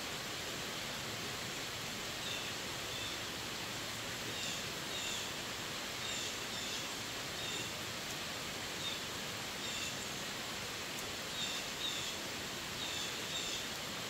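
Steady rain falling on forest foliage and wet pavement, an even hiss, with a bird giving short high chirps over and over from about two seconds in.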